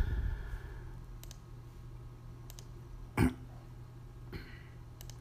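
Faint clicks of a laptop touchpad or mouse while the next photo is opened, over a steady low electrical hum, with one short throat-clearing sound about three seconds in.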